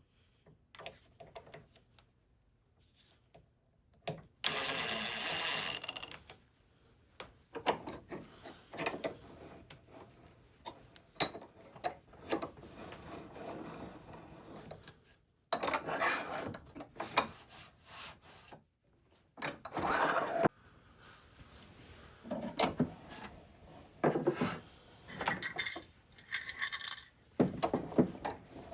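Tools and metal hardware handled on a workbench: irregular clinks, knocks and scrapes, with a longer rasping stretch about four seconds in.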